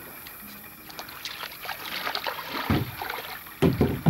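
Plastic kayaks being handled in shallow water at the shore: scattered small knocks and light water sounds, with a dull thump about two-thirds of the way through and a louder run of thumps near the end.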